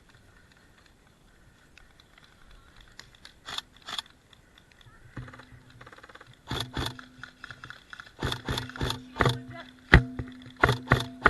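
Airsoft guns firing: a quiet start, then irregular sharp cracks, single and in short strings, growing busier with the loudest crack near the end.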